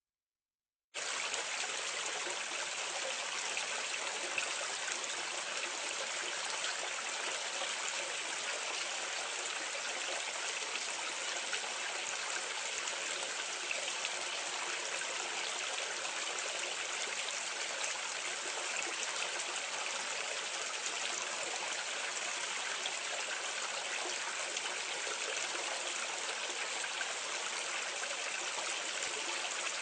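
Water running steadily down a drain, falling and splashing in a continuous even rush, heard from a medium distance. It starts about a second in and holds steady with no change.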